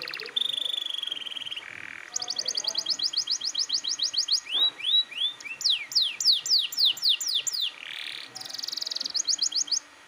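Domestic canary singing a long, varied song of buzzing trills, rapid runs of repeated notes and a series of falling whistled sweeps. The song breaks off suddenly at the end.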